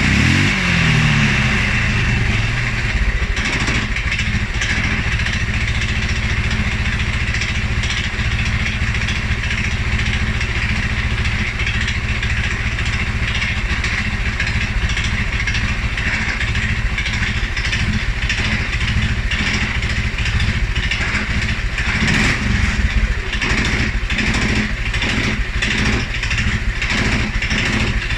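2011 Polaris Sportsman 550 XP ATV's single-cylinder engine, its revs falling back to a low idle at the start. There is another brief rev about 22 seconds in, then an uneven idle toward the end. This is the low, rough idle after revving that the owner is chasing, which dealer checks of the EFI sensors have not explained.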